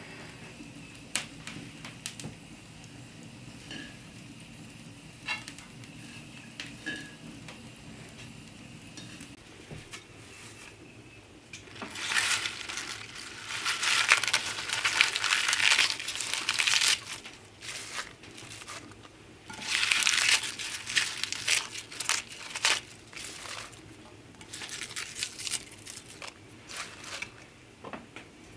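Fresh spinach leaves being picked from a bowl and dropped into a metal pail, a crisp rustling and crunching of leaves that comes in three spells over the second half, with quieter handling noises before.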